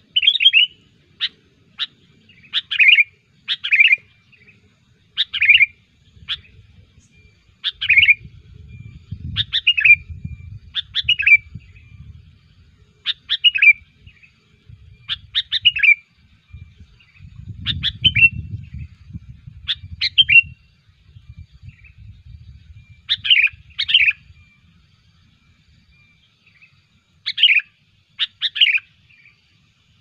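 Sooty-headed bulbul (kutilang) calling: short, bright chirping phrases of quick falling notes, about one a second, with a pause near the end. A low rumble sits underneath for a few seconds at a time.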